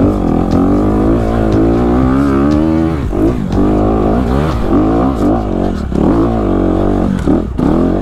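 Honda CRF250RX single-cylinder four-stroke dirt bike engine pulling up a steep trail, its pitch held fairly steady for the first few seconds, then rising and falling again and again as the throttle is worked.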